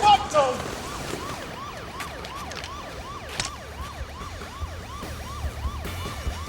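Emergency-vehicle siren in a fast yelp, its pitch rising and falling about two and a half times a second. A low rumble comes in after about four and a half seconds.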